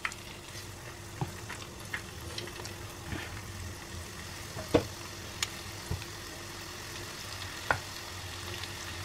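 Batter-coated chicken pieces sizzling in shallow hot oil in a nonstick frying pan as they are spooned in one by one, with sharp taps of a metal spoon now and then, the loudest about halfway through and near the end.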